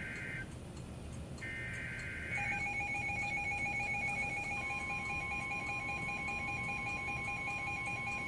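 Electronic alert tones: a high ringing tone pulses on and off about once a second, then gives way about two seconds in to steady tones with a fast-pulsing high beep, over a low, steady hiss of rain.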